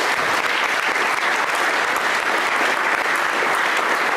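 Steady applause from many people clapping together, a dense even patter of claps.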